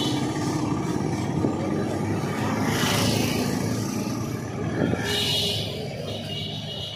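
Street traffic: vehicle engines running, with two short high hissy sounds about three and five seconds in.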